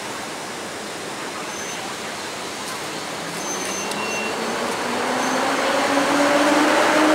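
EP08 electric locomotive pulling a train out of the station. Its traction drive gives a whine that climbs steadily in pitch from about halfway through and grows louder as the locomotive draws near.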